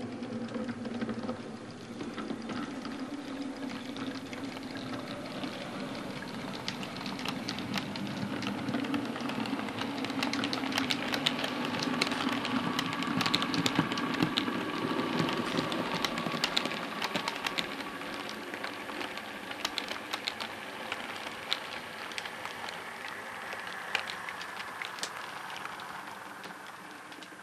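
Bachmann OO gauge Class 350 model electric multiple unit running along the track: a steady motor whirr with rapid clicking of the wheels over rail joints and pointwork, the clicks busiest about halfway through.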